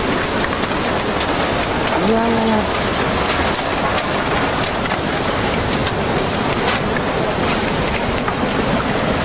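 Steady, dense rushing of tsunami floodwater churning with debris. A short voiced cry rises over it about two seconds in.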